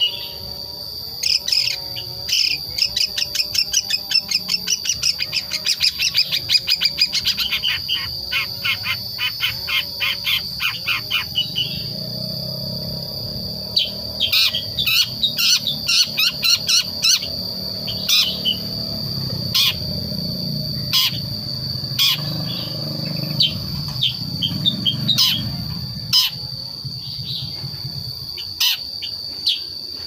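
Young cendet (long-tailed shrike), about five months old, twittering in its natural, untutored voice: the soft 'ngriwik' practice song of a bird still learning to sing. A fast run of short chirps lasts from about a second in to about twelve seconds, then scattered single chirps and short bursts follow. A steady, high insect trill runs underneath.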